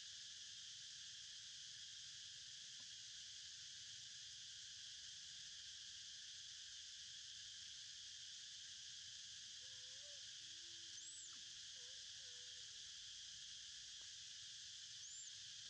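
Steady, faint chorus of forest insects, an even high-pitched hiss that never lets up. A few faint short calls come in about two-thirds of the way through, with a brief high rising note then and again near the end.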